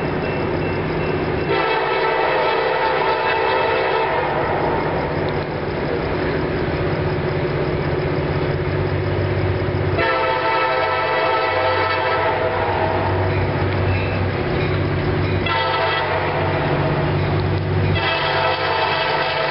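CSX EMD GP39-2 diesel locomotive approaching, its air horn sounding the grade-crossing signal: long, long, short, long. The low, steady running of its diesel engine continues underneath.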